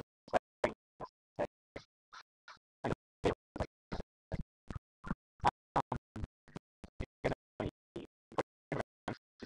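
A man's voice chopped into short fragments, about three a second, with dead silence between them: the recording's audio is dropping out.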